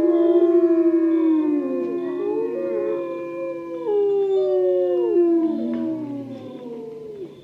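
Several canines howling together in a chorus: long, overlapping held notes that slide downward, fading out near the end.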